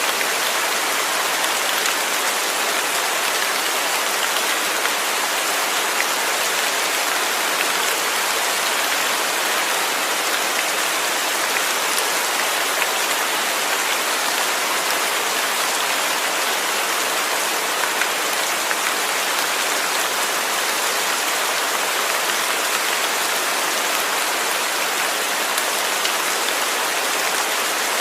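Steady rain falling, with a dense patter of drops striking a surface and faint scattered individual drop ticks.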